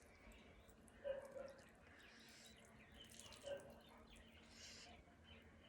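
Near silence with a few faint eating noises: soft mouth clicks about a second in and again past the middle, as someone starts chewing food.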